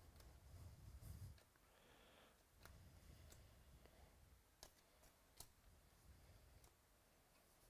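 Near silence with a few faint, scattered clicks and soft handling thumps: trading cards being handled and flipped through.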